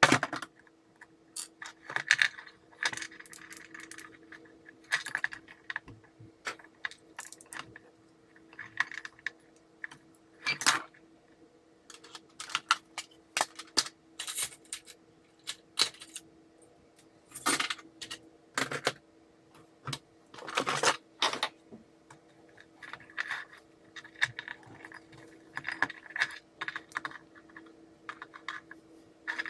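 Irregular clicks, taps and light clatter of small plastic parts, screws and hand tools being handled as a cordless work light is taken apart, some in quick clusters, over a faint steady hum.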